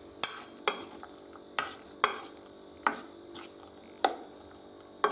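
A spoon stirring grated boiled potato into beaten egg in a bowl, with about eight short scraping knocks of the spoon against the bowl, spaced roughly half a second to a second apart.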